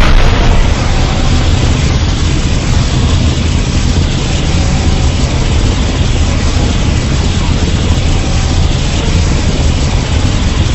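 A custom Godzilla sound effect: a loud, steady, heavy rumble with hiss that goes on unbroken, without separate strikes.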